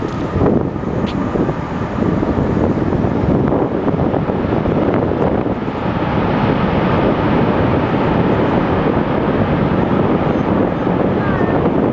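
Wind buffeting the microphone over the steady distant rumble of a Boeing 737's jet engines as the airliner rolls out along the runway after landing.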